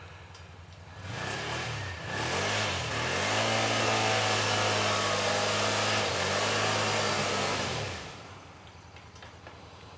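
Can-Am Outlander 650 ATV's V-twin engine revving up about a second in. It holds at high revs under load for several seconds as the quad ploughs through deep slushy snow, with a brief dip partway, then drops back to a lower, quieter run near the end.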